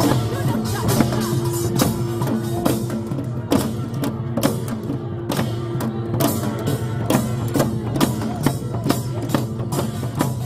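Sogo, small Korean hand drums, beaten with sticks in a quick, lively, uneven rhythm by several players at once, over music holding a few steady low notes.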